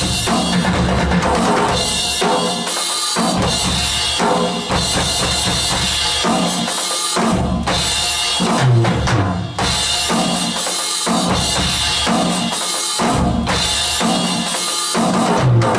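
Roland HD-3 electronic drum kit being played as a continuous beat, with bass drum, snare and cymbals, picked up by an action camera's built-in microphone.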